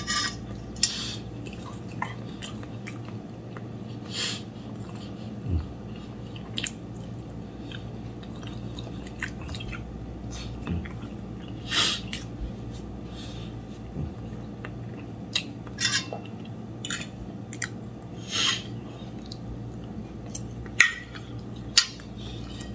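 A man eating pancakes: chewing and mouth sounds, with scattered short clicks of a fork on a ceramic plate. A few brief breathy bursts come through, one about twelve seconds in as a tissue is pressed to his face. A low steady hum runs underneath.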